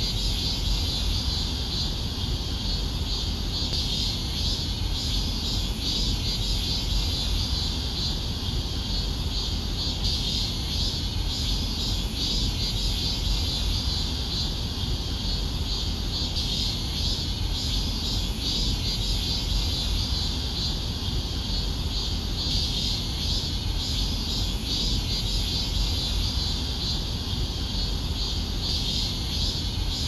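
A steady chorus of night insects, a dense high chirring that swells and eases a few times, over a low rumble.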